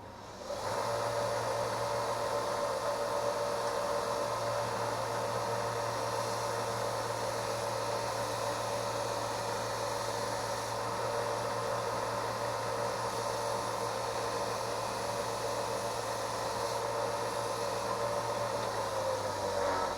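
A small electric motor with a fan runs steadily with a whirring hum. It switches on just under a second in and drops off near the end.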